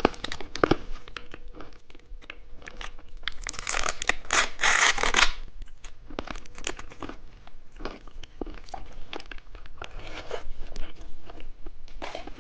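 Plastic packaging of a small jelly candy being handled, crinkled and torn open, with scattered small clicks and rustles. About three and a half seconds in comes a louder tearing or peeling sound that lasts nearly two seconds.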